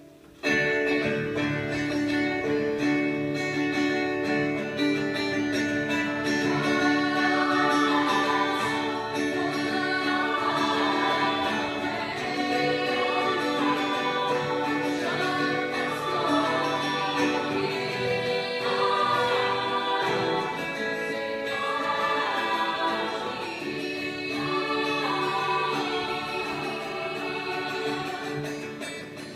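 Female show choir singing together, with acoustic guitars strumming along; the voices come in suddenly and loudly about half a second in and keep singing with notes held and moving lines.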